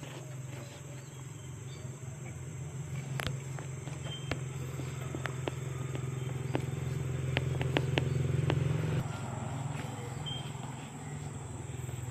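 Tabby cat purring in a low, steady rumble while licking its fur, with scattered sharp clicks. The purr grows louder, then drops off abruptly about nine seconds in.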